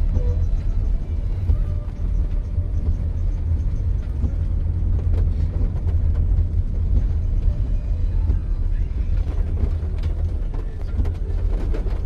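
Steady low rumble of city traffic, with faint scattered ticks.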